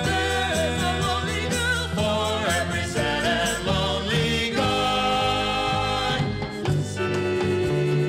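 Vinyl 45 rpm single playing a pop/soul song: sung vocals over a full band with held chords, the record near its end.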